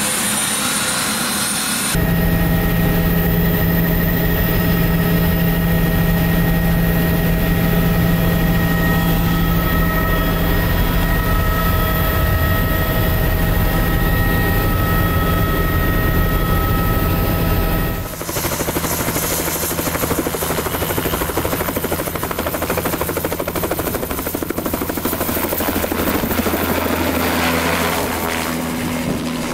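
Helicopter heard first from inside the cabin in flight, a steady loud drone of engine and rotor. From about two-thirds in it is heard from outside as it lifts off, with the rotor beating rapidly under a high turbine whine that rises slowly.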